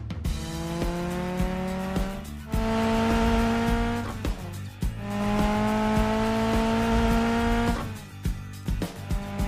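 Cartoon vehicle engine revving up twice, each time rising in pitch for about two seconds and then holding steady, over background music with a steady beat.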